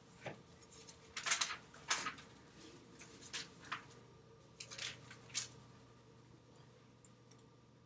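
Graphite pencil scratching on drawing paper in short shading strokes, a dozen or so quick scratches in uneven clusters, over a faint steady hum.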